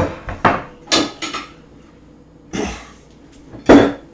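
Knife knocking and scraping on a cutting board and bowl as chopped vegetables are swept into the bowl: a run of sharp clacks, then a longer scrape, then one last loud knock near the end.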